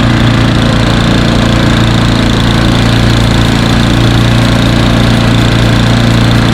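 Troy-Bilt Storm snow blower's single-cylinder four-stroke engine running steadily and loudly, a low engine hum with a steady rushing noise over it.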